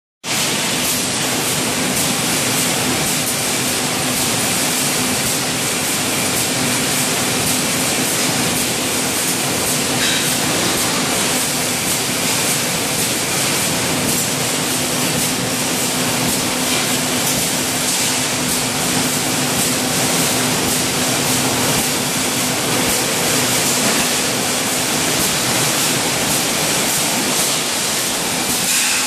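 Steady machinery noise on a wire mesh welding line: an even, loud hiss with a constant low hum underneath.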